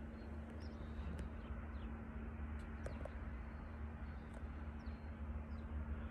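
Scattered short, high bird chirps over a steady low rumble of outdoor background noise.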